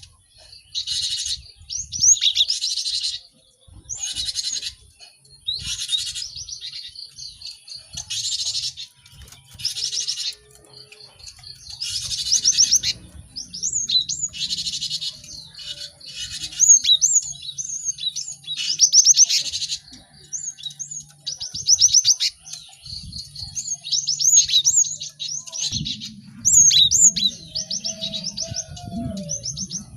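Several cinereous tits (gelatik batu) calling busily together. Quick chirps and short sweeping whistled notes overlap with harsh, rasping calls about half a second to a second long.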